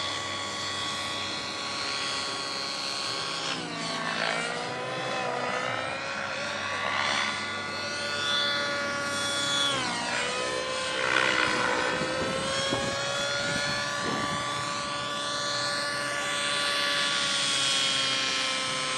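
Align T-Rex 700 radio-controlled helicopter in flight, a steady whine from its motor and rotor. The pitch dips and recovers twice, about 4 seconds in and again about 10 seconds in.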